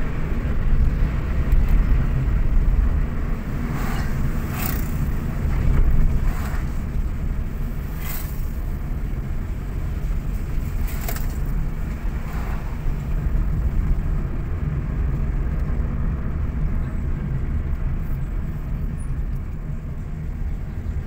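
Car driving along a paved road, heard from inside the cabin: a steady low rumble of engine and road noise, with a few brief clicks in the first half.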